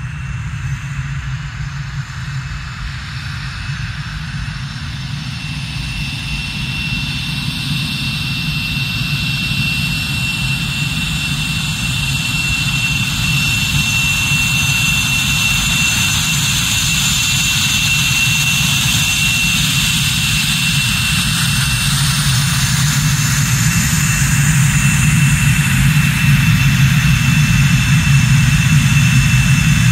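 F/A-18 Hornet's twin General Electric F404 turbofans running at taxi power: a steady high whine over a low rumble, growing slowly and evenly louder as the jet taxis closer.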